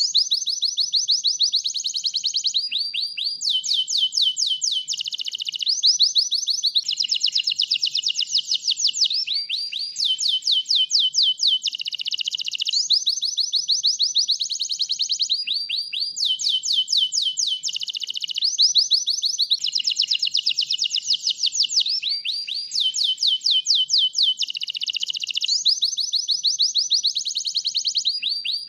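White domestic canary singing continuously: an unbroken run of high, rapid trills, each phrase a fast string of repeated notes that switches to a new phrase every second or two.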